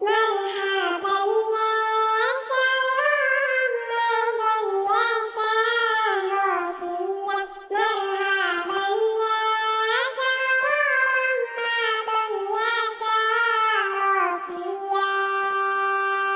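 A high, child-like voice singing a shalawat melody, unaccompanied, ending on a long held note.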